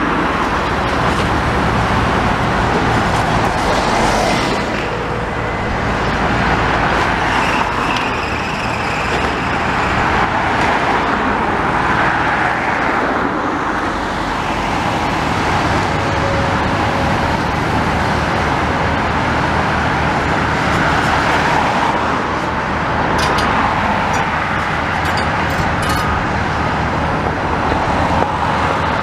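Hyundai tracked excavator's diesel engine running steadily while it works a demolition grab on the brickwork, with a few sharp knocks of debris near the end.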